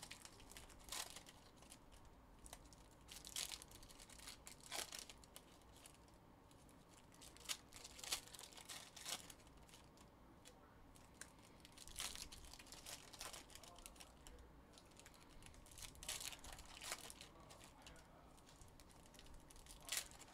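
Faint crinkling and rustling of trading-card pack wrappers and cards being handled, in short scattered bursts every second or two.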